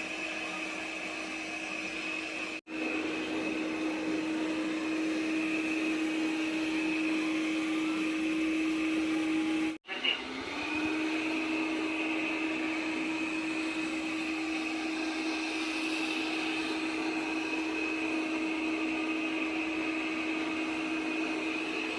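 Robot vacuum cleaner running in combined vacuuming and mopping mode: a steady motor hum with a high whine over it, cut off for an instant twice.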